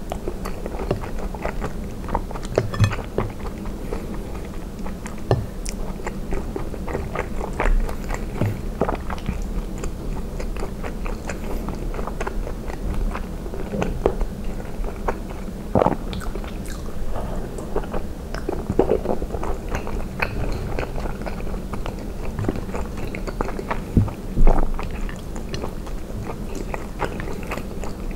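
Close-miked chewing of soft cheese and spinach ravioli in tomato sauce: wet mouth sounds with many small clicks and smacks, and one louder smack near the end.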